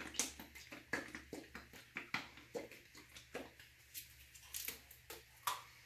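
Irregular light clicks and knocks from plastic paint cups being picked up and handled, over a low steady hum.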